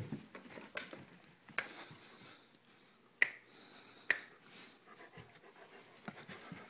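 Doberman panting, with a handful of sharp clicks scattered through; the two loudest come about three and four seconds in.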